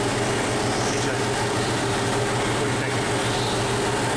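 Steady mechanical hum with a constant low tone, level throughout.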